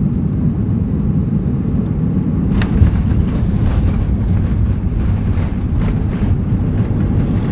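Steady low rumble of a Boeing 737-300's passenger cabin in flight. About three seconds in comes a sharp thump, followed by irregular rattling and clatter.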